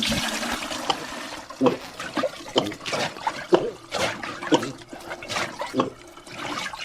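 Water sounds: a splash at the start, followed by a run of short gurgles, about two a second.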